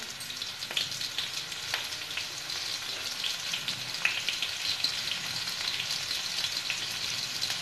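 Crushed garlic cloves and dried red chillies sizzling in hot oil in a kadhai: a steady hiss with many small crackles and a few sharper pops.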